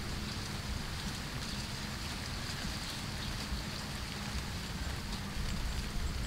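A cat chewing raw fish: soft wet crackling and faint clicks over a steady hiss and low rumble.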